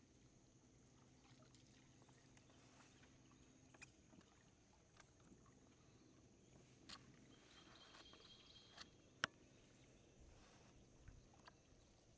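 Near silence with a faint steady low hum and a few light clicks and knocks, the sharpest about nine seconds in.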